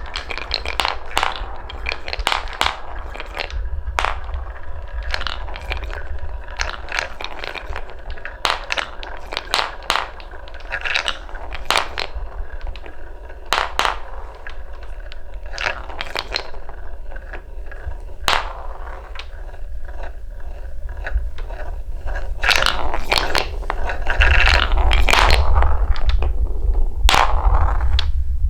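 Colored balls rolling down a wooden marble run track, clicking and clattering against the wood in frequent sharp knocks over a low rolling rumble. The rumble grows louder in the last few seconds.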